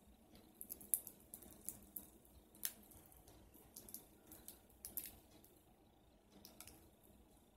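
Shells of boiled crawfish cracking and crackling as they are peeled apart by hand: a run of small sharp clicks and snaps for the first five seconds or so, the loudest about a second in, with a few more later.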